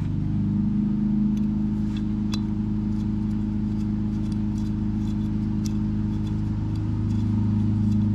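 A motor running steadily with an even low hum, with a few faint light clicks as a valve core is turned into an ATV tire's valve stem.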